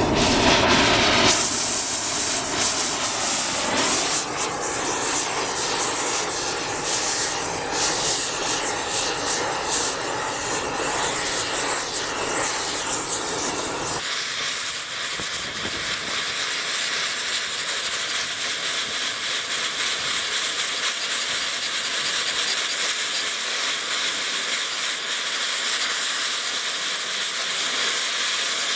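Oxy-acetylene rosebud heating torch blowing a steady rushing hiss as it heats the steel bucket ear toward orange so it can be bent. About 14 s in the sound changes abruptly from a rough, crackling rush to a steadier, thinner hiss.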